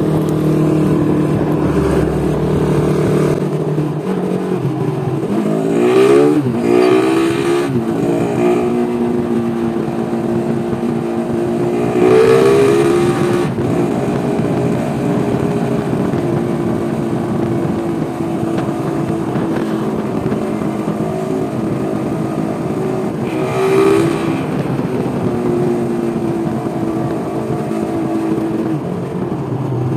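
Motorcycle engine running while riding, with wind and road noise. Its pitch climbs through a series of rises about five to eight seconds in, again around twelve seconds and around twenty-four seconds, as the bike speeds up through the gears. In between it runs steadily.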